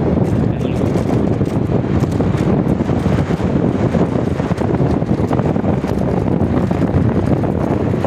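Steady, loud wind rumble on the microphone from riding in a moving vehicle on a road, with the vehicle running underneath it.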